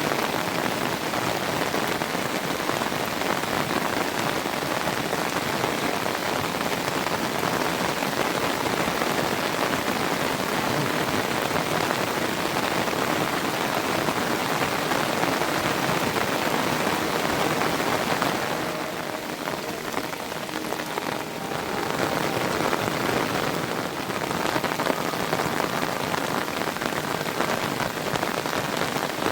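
Heavy monsoon rain falling steadily, a dense even hiss of pattering drops, easing briefly about two-thirds of the way through before picking up again.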